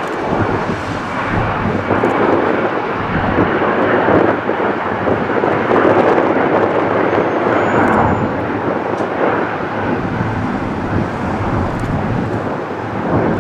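A twin-engine jet airliner's engines at takeoff thrust as it climbs out, a broad rumbling rush that swells around the middle.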